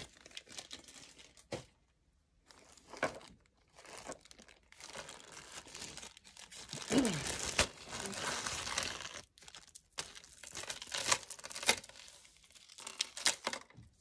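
Clear plastic zip-top bag crinkling and rustling in irregular spells as hands rummage inside it for jewelry, with short clicks along the way and the longest, loudest stretch of crinkling in the middle.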